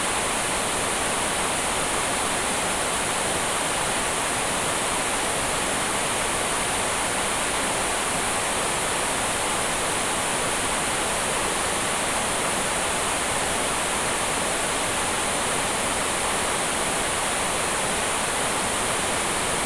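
Analogue television static: a steady, loud hiss of white noise from a set tuned to no signal, unchanging throughout.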